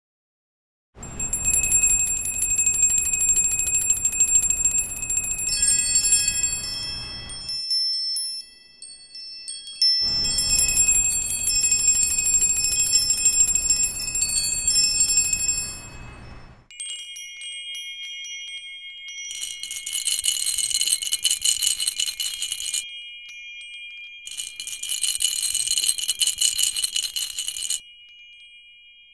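Bright, bell-like chiming in four bursts of a few seconds each, starting about a second in, with short gaps between them. The ringing tones are struck in quick repeated strokes, and the first two bursts carry a low rumble underneath.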